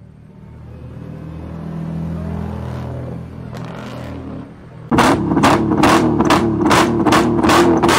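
A low rumble builds at first. About five seconds in, a car's engine comes in loud through twin exhaust tips at high revs: a steady engine note broken by loud, sharp pops about three times a second.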